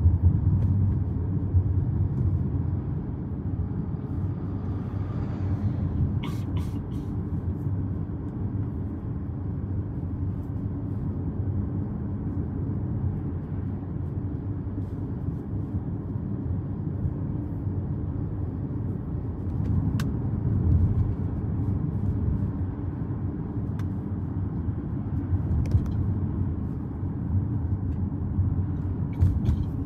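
A car being driven: a steady low rumble of road and engine noise. There are a few sharp clicks about six seconds in and again near the end.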